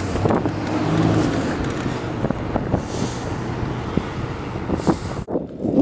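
Street traffic and road noise while riding a BMX bike along a town street, with cars close by and scattered short clicks and rattles.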